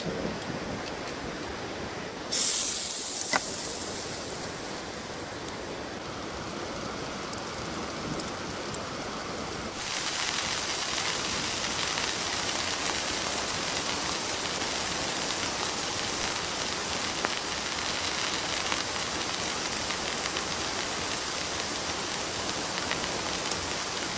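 Steady rain, falling harder and more evenly from about ten seconds in. A sudden high hiss starts about two seconds in and fades over a couple of seconds.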